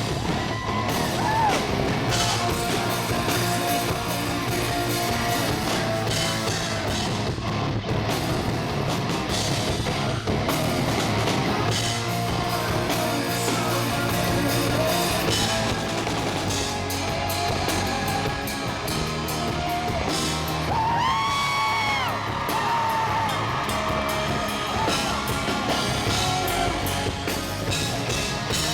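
Live rock band playing, with drum kit and electric guitars. A male lead vocal holds a long note with a bend in pitch about two-thirds of the way through.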